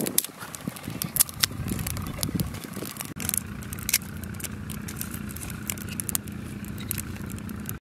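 Dry twigs crackling and snapping as sticks are handled and fed into a small wood fire, a string of sharp irregular clicks. A steady low motor hum comes in about three seconds in and carries on underneath.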